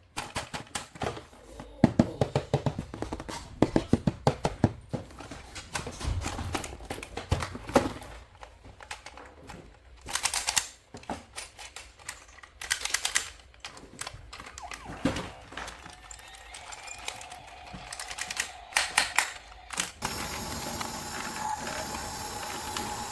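Rapid clicking and rattling of plastic toy vehicles and their packaging being handled, in quick runs and then in short clusters. Near the end a steadier whirring sets in.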